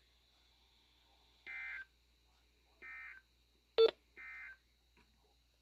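Emergency Alert System end-of-message SAME data tones: three short bursts of digital tones about a second apart, marking the end of the weather radio warning. A sharp click sounds between the second and third bursts.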